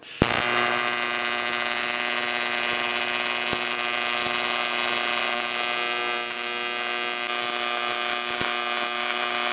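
AC TIG welding arc on aluminium from a Sanjoe TIG200 AC/DC welder set to 120 Hz AC frequency: a steady, even buzz that strikes up abruptly with a click at the start.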